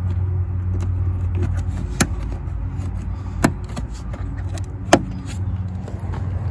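A lawn mower engine running steadily, with three sharp clicks about a second and a half apart as plastic push clips are worked into the car's trim panel.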